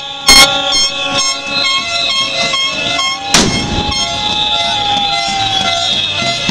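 Protest din of air horns and whistles blaring with steady held tones, one horn rising, holding and falling in pitch. Two loud sharp bangs of firecrackers cut through it, one just after the start and one about three and a half seconds in.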